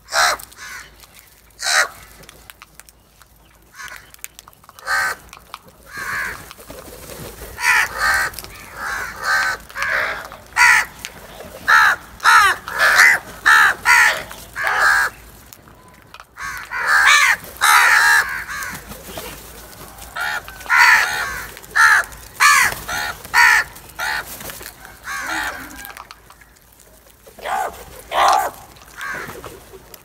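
A flock of house crows cawing, many short harsh calls overlapping in quick succession. The calls are thickest through the middle, with fewer at the start and near the end.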